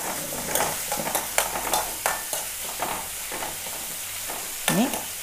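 Chopped onion, green chillies, carrot and curry leaves sizzling in hot oil in a metal kadai while a steel spoon stirs and scrapes them, with a steady sizzle and irregular clinks of the spoon against the pan as the vegetables are sautéed.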